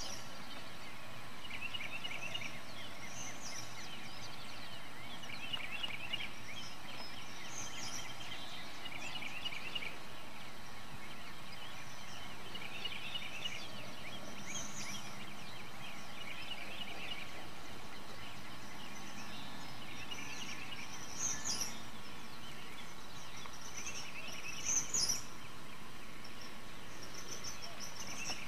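Birds calling outdoors: short chirping phrases repeat every second or two, with higher chirps growing more frequent near the end, over a steady background hiss.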